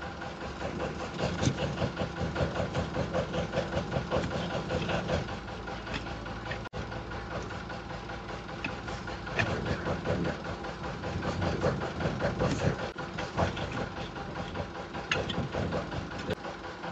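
Broad flat hoof knife paring down through a donkey's twisted, overgrown hoof, in repeated scraping cuts with a few sharper cracks as pieces of horn come away. A steady engine-like hum runs underneath.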